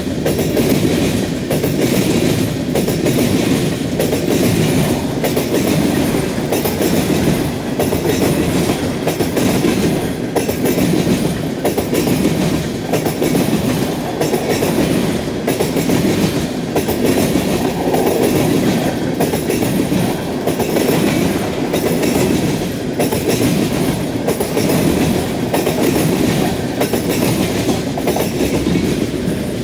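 Freight cars rolling past, wheels clicking over the rail joints in a steady, regular clickety-clack about once a second under a continuous rumble of rolling noise.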